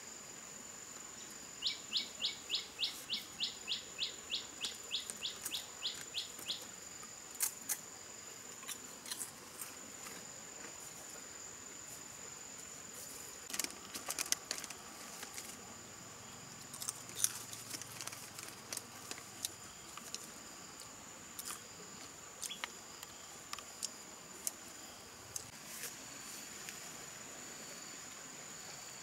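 Forest ambience. A bird gives a rapid run of about seventeen short, high, evenly spaced notes that fade away, over a steady high-pitched insect drone. Scattered light clicks and rustles follow.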